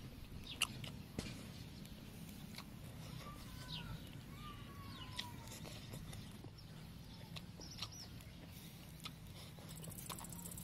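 Quiet eating sounds: a fork clicking now and then against a metal plate of noodles. Faint animal calls, a few short falling cries about three to five seconds in, carry over the background.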